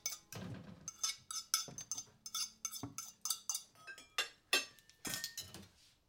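Crockery and cutlery clinking and clattering as they are handled, a quick irregular run of small knocks and chinks, some ringing briefly.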